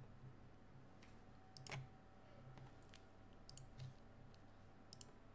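Near silence: room tone with a few faint, scattered clicks, the clearest about a second and a half in and again near the end.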